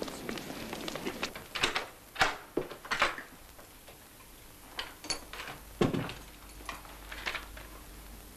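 A woman's shoe clicks, then sharp knocks of a key and lock at a flat door, with a heavier door thud about six seconds in. A sheet of notepaper is handled near the end.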